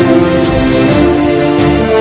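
Background music: sustained held chords over a steady beat with regular percussion hits.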